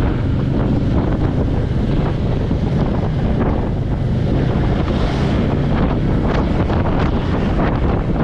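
Royal Enfield Meteor 350's single-cylinder engine running steadily under way, mixed with heavy wind rushing over the microphone.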